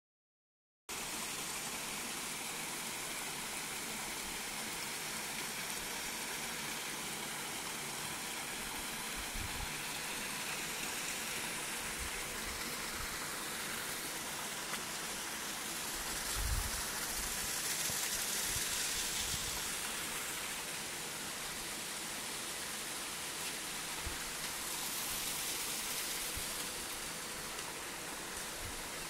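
Steady rushing of flowing water, an even hiss that does not let up, with a few low bumps on the microphone, the strongest a little past halfway.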